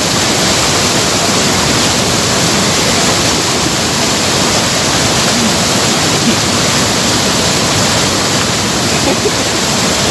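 Waterfall water pouring over rock close to the microphone: a steady, loud rush of falling water.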